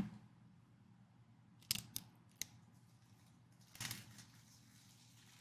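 Stiff trading cards being handled: three light, sharp clicks of card edges about two seconds in, then a short rustle of cards sliding against each other about four seconds in, over a faint steady hum.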